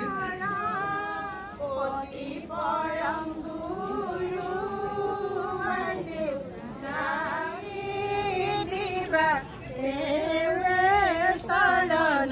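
High voices singing a melody without instruments, in long, wavering held notes.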